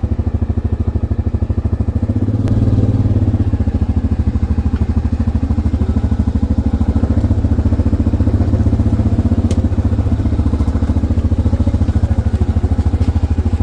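ATV engine running under way, its rapid, even firing pulses steady throughout; it gets louder about two seconds in as the throttle opens and holds there.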